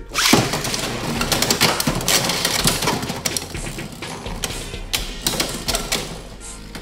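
Two Beyblade X spinning tops launched into a clear plastic stadium, clattering and clashing as they spin. A rapid clicking rattle comes from their tips running along the stadium's toothed rail, and the clatter eases off toward the end.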